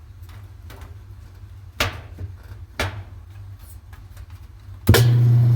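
Top-load washing machine being started on spin: two sharp clicks as it is set, then about five seconds in its motor comes on suddenly with a loud, steady low hum.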